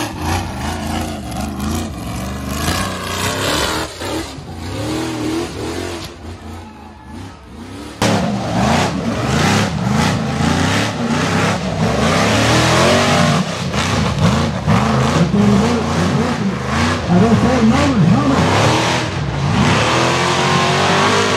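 Rock bouncer buggy engine revving hard in repeated rising and falling bursts as the buggy crawls and bounces up a rocky hill. The sound jumps abruptly louder about eight seconds in.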